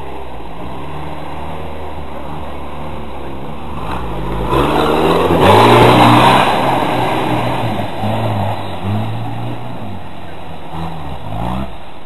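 Off-road trial vehicle's engine running steadily, then revved hard as it climbs a steep dirt bank, loudest about six seconds in. The revs then rise and fall several times.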